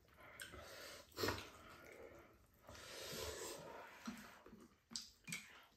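Faint eating sounds: noodles slurped up in a rush of breath about three seconds in, with a few sharp light clicks around it.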